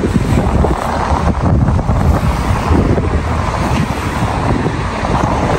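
Wind buffeting the microphone outdoors: a loud, uneven low rumble and rush.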